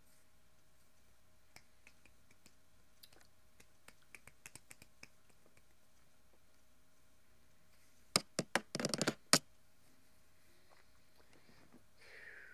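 Scattered faint clicks and taps, then a quick run of loud, sharp clicks about eight seconds in that lasts about a second. A faint falling sound comes near the end.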